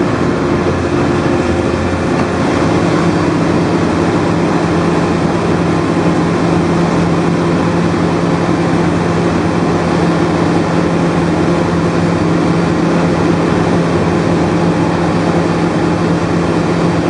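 Heavy drilling machine running steadily: a constant loud engine drone with a steady low hum, with no change in pace.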